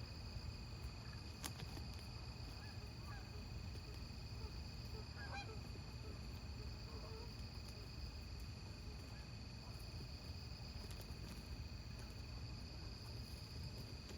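A chorus of night insects, such as crickets, trilling steadily in two high unbroken tones, with a faint low rumble beneath and a few faint short calls scattered through.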